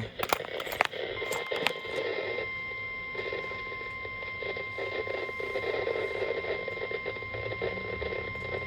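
NOAA Weather Radio's 1050 Hz warning alarm tone, a single steady high beep, coming through a weather radio receiver over hiss and static crackle. It starts about a second in, after a few crackling clicks, and holds unbroken: the alert signal that a warning message is about to be read, here a severe thunderstorm warning.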